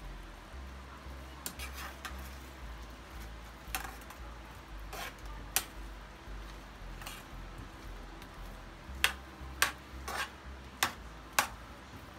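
Metal spoon clinking and scraping against a nonstick skillet while stirring diced potatoes. The clinks are scattered at first, then come about two a second near the end, over a low steady hum.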